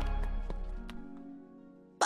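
Cartoon background music fading out: a held chord with a few light plucked notes in the first second, dying away to near quiet by the end.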